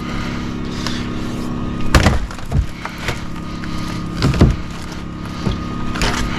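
Demolition work on a wooden shed: about half a dozen knocks and thuds of wood being struck and broken, the loudest about two seconds in and again past four seconds. Under them a motor hums steadily.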